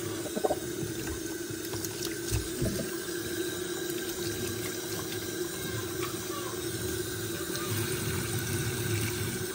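Tap water running steadily from a sink faucet, pouring onto a capuchin monkey sitting under the stream and splashing in the basin. The stopper has been pulled, so the sink drains instead of filling.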